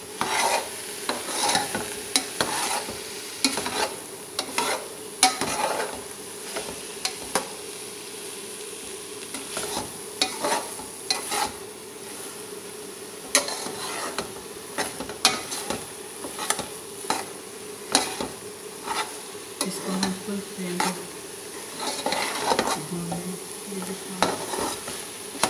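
Steel spoon stirring and scraping thick carrot halwa around a steel pot, with irregular clinks and scrapes against the metal over a steady sizzle of frying in ghee. The halwa is being fried down until its remaining water dries off.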